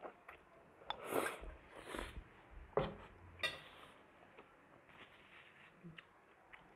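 A person eating noodles, with slurps and a few short eating noises. There are sharp clicks of a metal fork against a ceramic plate and the crackle of a paper tissue being handled.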